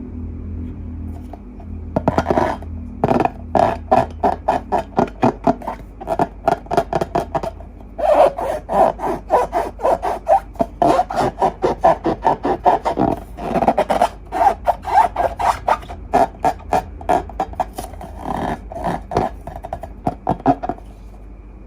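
Slime being squeezed and poked by hand: a quick, uneven run of sticky pops and clicks, several a second, with a short pause part-way through.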